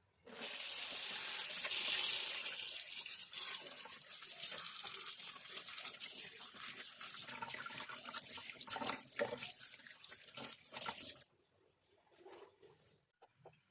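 Water running from a tap, with many small clicks and rustles of things handled in the stream; it stops suddenly about eleven seconds in.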